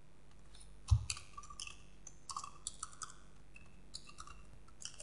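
Computer keyboard typing: faint, irregular key clicks, opening with a low thump about a second in.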